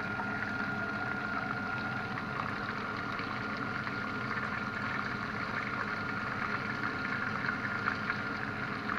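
Chicken breast pieces sizzling steadily in hot oil in a frying pan, under a faint steady high-pitched tone.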